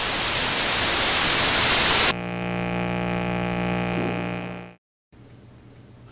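Loud static hiss that swells for about two seconds, then cuts off suddenly into a steady electrical hum. The hum fades out about two seconds later, and after a brief silence only faint room tone remains.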